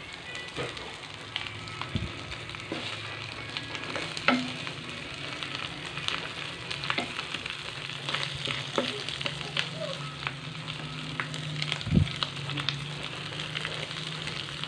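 Dried fish (tuyo) frying in oil in a nonstick pan, sizzling with steady crackle, while a wooden spatula scrapes and knocks against the pan as the fish are moved and turned; the sharpest knocks come about four seconds in and again later.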